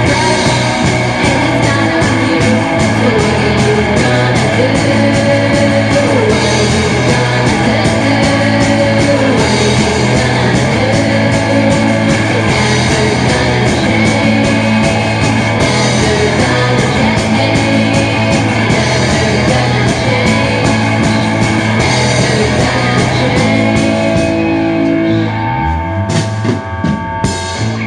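A rock band's demo recording playing, with guitar to the fore. The music thins out and winds down near the end.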